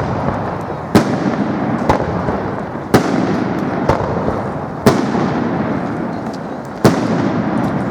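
Aerial firework shells bursting in a display: four loud bangs about two seconds apart, with smaller cracks and a continuous crackle and rumble between them.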